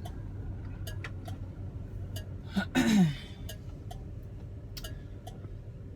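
Turn-signal flasher ticking in a steady rhythm inside the cabin of a 1971 Oldsmobile Cutlass S, over the car's low, steady engine and road hum. A short falling vocal grunt comes about three seconds in.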